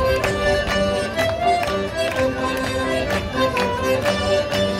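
Folk band playing a traditional dance tune: a held melody over a steady, even beat.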